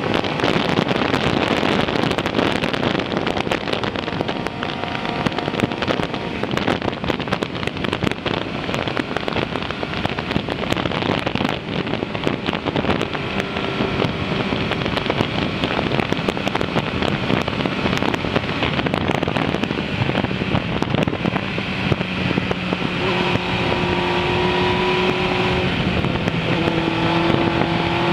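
Wind rushing over the microphone of a Suzuki GSX-R 600 riding at road speed, with the bike's inline-four engine running beneath it. In the last third the engine note comes through more clearly as a steady tone, shifting slightly in pitch near the end.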